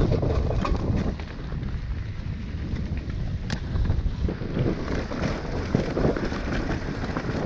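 Wind rumbling on a GoPro action camera's microphone, with a dirt bike's engine running underneath. There is a single sharp click about three and a half seconds in.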